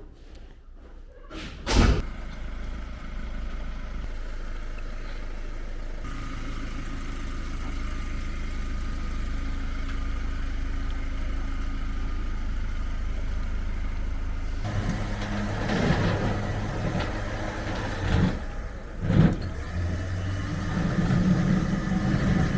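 1968 Porsche 912's air-cooled flat-four engine catching with a sharp burst, then running steadily. About two-thirds of the way through it gets louder and deeper, with a few short throttle blips. The owner says this engine is losing compression and oil on one cylinder.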